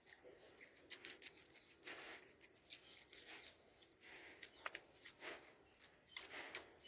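Faint quick clicks and short breathy huffs from a Doberman mouthing and snapping at a person's hand in play.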